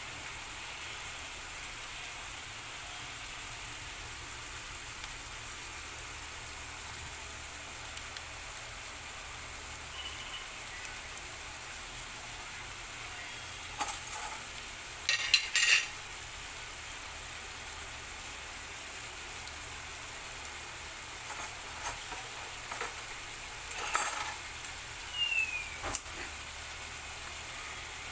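Ground pork, potatoes and bell peppers simmering in a pan over a gas flame: a steady sizzling hiss. A few sharp clinks and clicks break in about halfway through and again near the end.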